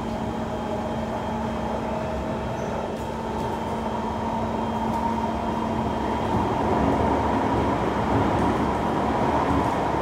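Kawasaki C151 MRT train running between stations, heard from inside the carriage: a steady rumble of wheels on rail with a steady whine over it, growing a little louder about halfway through.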